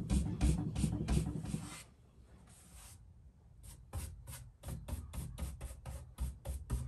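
Natural-bristle paintbrush stroking pink paint back and forth over the wood of a dresser, a quick scratchy swish of about four strokes a second. The strokes pause for about two seconds in the middle, then start again.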